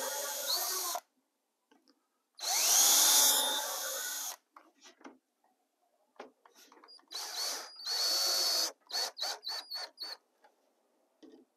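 Cordless drill boring through a thin shim into plywood. One run stops about a second in, and a longer run starts about two and a half seconds in with the motor winding up in pitch. Near the end there is another run, then a string of short trigger blips.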